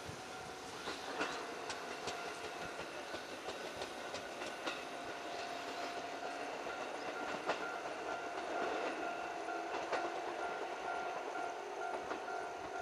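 JR 415-series electric multiple unit pulling away from a station along the track. Its wheels click over rail joints at irregular intervals above a steady hum.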